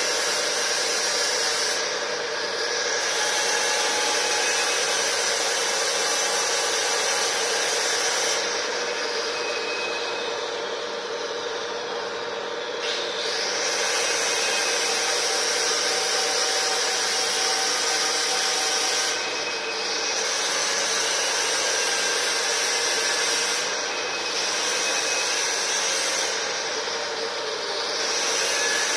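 Angle grinder running continuously with a steady whine while sanding or stripping a surface. The abrasive hiss fades and comes back several times as the disc eases off and bears down again.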